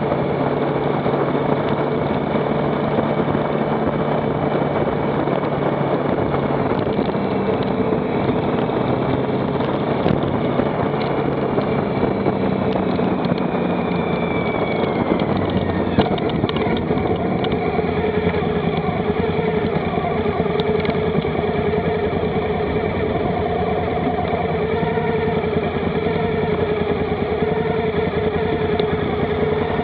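Motorcycle engine running while riding along, over steady road and wind noise; the engine note falls about halfway through, then runs on at a lower, changing pitch.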